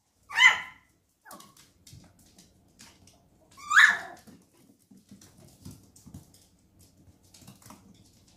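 A dog yips twice, two short high-pitched calls about three and a half seconds apart, with faint clicking between them.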